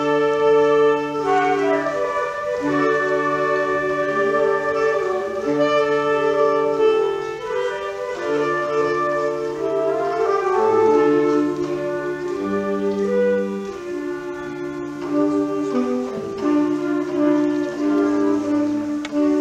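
Small instrumental ensemble playing live: several sustained notes layered into chords that shift slowly, one chord to the next every second or two.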